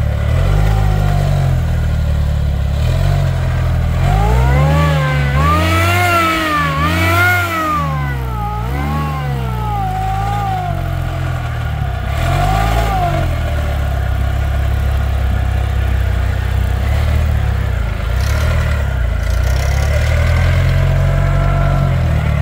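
Rock crawler buggy's engine running under load, revved up and down in a quick run of rises and falls a few seconds in, then again more briefly, over a steady low rumble as the buggy crawls over the obstacle.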